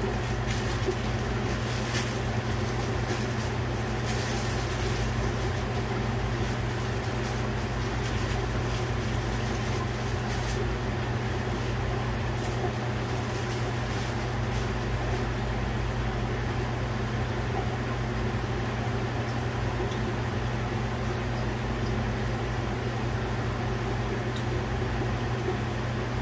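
Steady hum of a saltwater reef aquarium's running equipment: pumps droning on a low mains tone, with water circulating and a few faint ticks in the first ten seconds or so.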